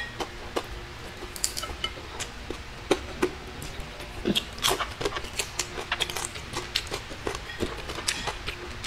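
Close-up eating sounds: chewing fried dried fish and rice, with many irregular short crunches and wet mouth clicks, plus fingers picking food off a plate.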